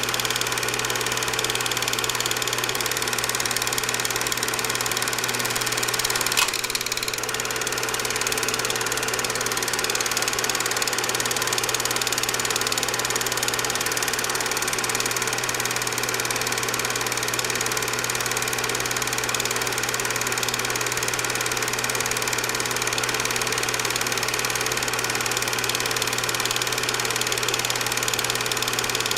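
Film projector running steadily: a continuous mechanical whir with a steady hum, and one sharp click about six seconds in.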